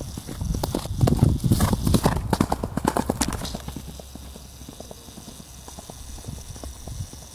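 Hoofbeats of a ridden horse moving fast on an asphalt road, loudest as it passes about a second in, then fading as it moves away.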